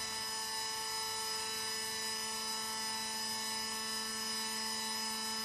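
Hydrostatic transmission test rig running: its hydraulic pump and motor units give a steady whine of several pitches held constant, with no change in speed.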